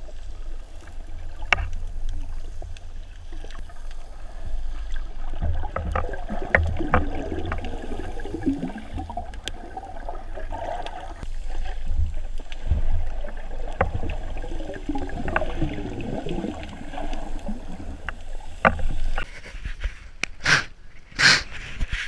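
Underwater sound heard through a GoPro's waterproof housing: a muffled low rumble of moving water, with gurgling and scattered clicks and knocks. Near the end come a few short, loud rustling bursts.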